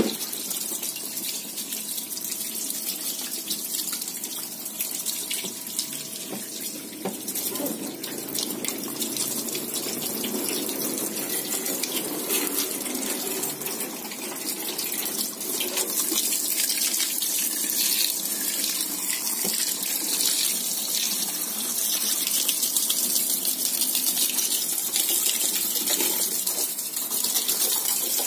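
Water from a hose splashing over a car's engine bay, running onto metal panels and engine parts as a steady hiss of spray that gets a little louder about halfway through.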